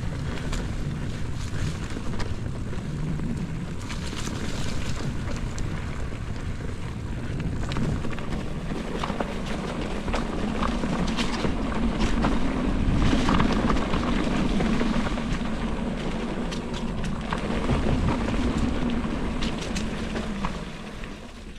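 Mountain bike rolling down a leaf-covered dirt trail: knobby tyre noise and crunching leaves, with a low hum that swells and fades as the speed changes and scattered short rattles over bumps. Wind buffets the microphone throughout.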